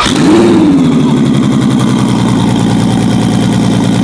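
Twin-turbocharged Ferrari F12's V12 engine starting up: it fires, flares briefly in revs and settles within about a second and a half into a steady idle.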